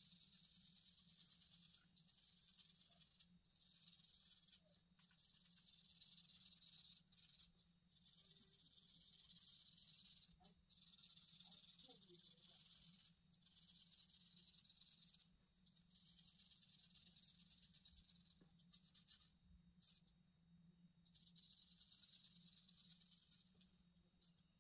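Felt-tip marker scratching across paper in quick back-and-forth hatching strokes, faint, in runs of a second or two broken by short pauses. A steady low hum lies underneath.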